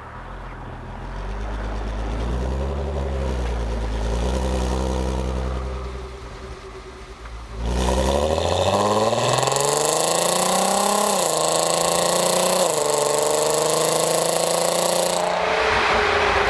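Stock exhaust of a Mk5 Volkswagen Golf R32's 3.2-litre VR6, heard from the rear bumper. It rumbles at low revs, then about halfway through accelerates hard with a rising note. The pitch drops sharply twice, as with upshifts, before the throttle is lifted near the end.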